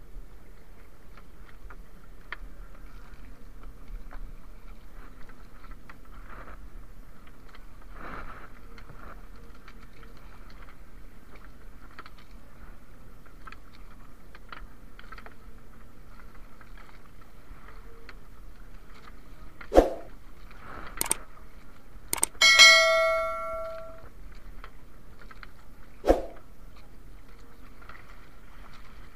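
Water lapping around a small wooden outrigger canoe, with a few sharp knocks in the second half. The loudest sound is one metallic clang that rings clearly for about a second and a half.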